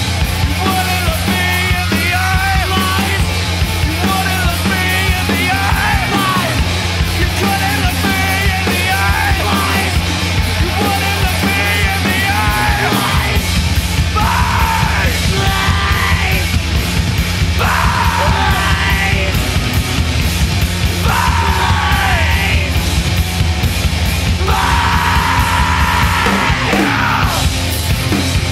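Sludge metal / punk rock band playing, with heavily distorted guitars and bass, drums and yelled vocals. In the second half the vocals become separate long yells that slide down in pitch every few seconds.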